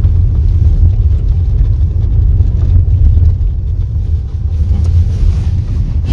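Car driving over a rough, unpaved dirt road, heard from inside the cabin: a steady, low, deep road and engine noise.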